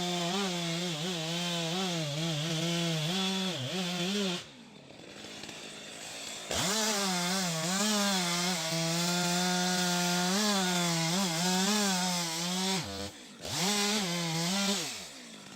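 STIHL MS 462 C-M two-stroke chainsaw running at high revs while cutting wood, its pitch wavering with the load. It falls away about four and a half seconds in and revs back up two seconds later, then dips briefly once more near the end.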